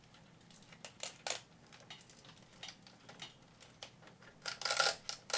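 Cables being handled and routed inside a PC case: scattered light clicks and taps of plastic connectors and cable against the case, with a longer rustle near the end.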